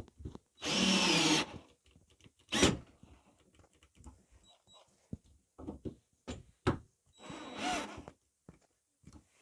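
Cordless drill running in three short bursts into an old wooden beam, its motor whine rising and falling within each burst. Small knocks and handling clicks come between the bursts.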